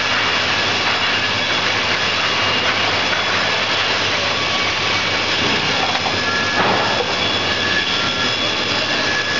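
Four-head horizontal slat-cutting saw machine running under load as a timber beam is fed through it on a chain conveyor by spiked feed rollers: a steady, loud rush of saws and motors with a high whine. A brief knock about two-thirds of the way through.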